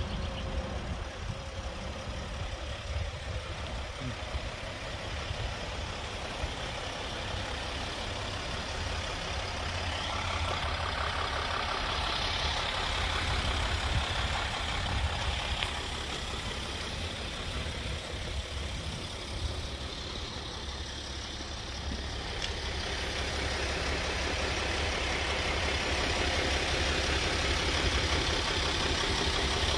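Mercedes-Benz Sprinter 4x4 camper van's diesel engine idling steadily, growing louder near the end.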